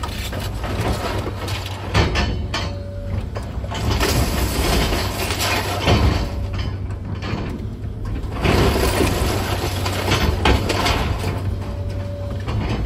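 Komatsu 200 excavator's diesel engine running with a steady low drone, under rough crunching and clattering of demolition debris, with a few sharp knocks.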